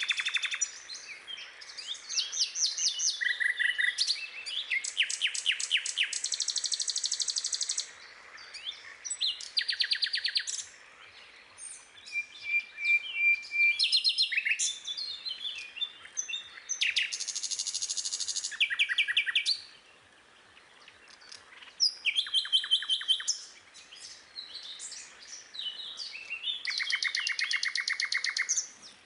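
Birdsong: several birds singing and chirping, with fast trills and rapid runs of repeated high notes coming in bouts and short pauses between them.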